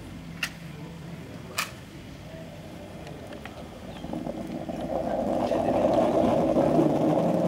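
Two sharp clicks in the first two seconds, then a murmur of many voices rising from about four seconds in.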